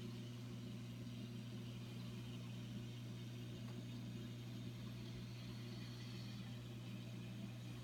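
Steady low hum from a reef aquarium's running pumps and equipment.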